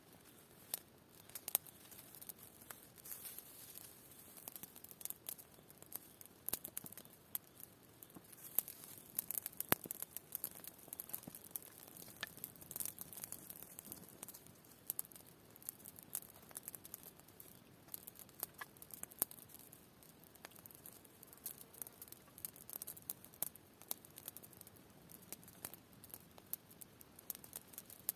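Irregular quiet crackling and rustling, many small sharp clicks at uneven intervals over a faint hiss.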